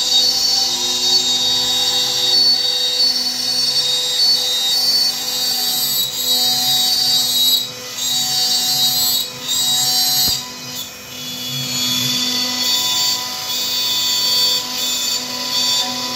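CNC router spindle whining at high pitch as its bit cuts an outline into a wooden board. The loudness dips briefly three times around the middle.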